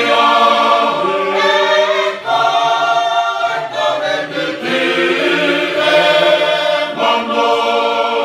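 Tongan church choir of mixed men's and women's voices singing a hymn in parts, holding long chords with short breaks between phrases.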